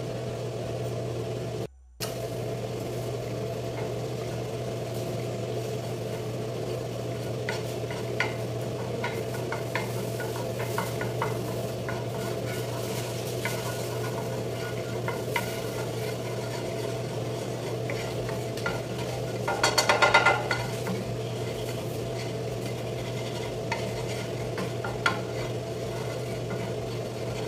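A wooden spoon stirring butter melting in a nonstick frying pan, with a soft sizzle, small taps and scrapes against the pan, and a brief rattling scrape about twenty seconds in. A steady low hum runs underneath.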